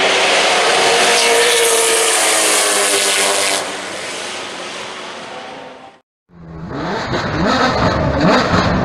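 Holden Commodore V8 Supercar engine running hard at high revs. Its level drops suddenly a little over a third of the way in, then fades away as the car moves off. After a brief silence, a different loud sound with many rising and falling pitches begins.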